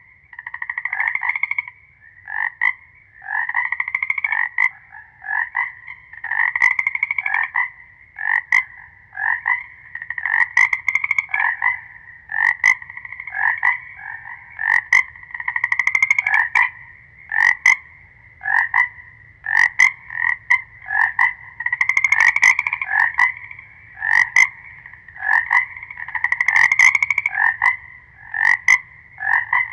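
A chorus of frogs croaking, many calls overlapping and following each other in quick succession without a pause.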